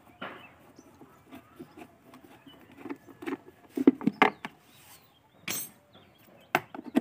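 Plastic air filter box cover on a Bajaj Discover 100 motorcycle being handled and pressed into place by hand: scattered light clicks and knocks of plastic against the frame. The loudest come in a cluster around four seconds in, with a sharp click near the end.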